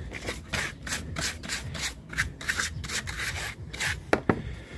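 Rapid rubbing or scraping strokes, about four a second, with two sharp clicks near the end.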